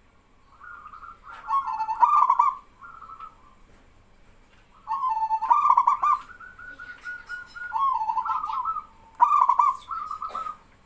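Male zebra doves (perkutut) singing their rippling cooing phrases, about six in all, with gaps between. A louder bird and a fainter one answer each other.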